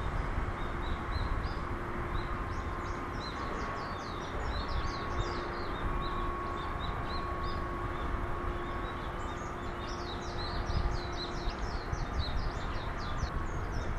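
Small birds chirping in quick, repeated high notes, busiest about ten seconds in, over a steady low outdoor rumble with a faint level hum.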